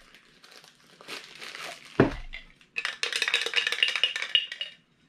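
A Funko Soda tin can being opened by hand: a sharp metallic clink about two seconds in, then about two seconds of crinkling and rattling as the contents are handled.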